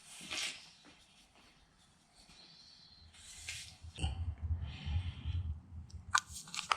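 Seasoning shaken from containers onto raw ribs in short hissy bursts, with low rumbling handling noise in the middle and a couple of sharp clicks near the end.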